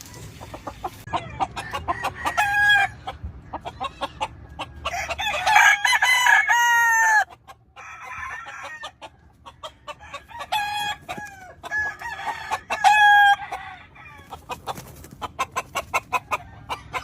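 Several gamefowl roosters crowing in turn, four or five long crows, with short clucking calls between them.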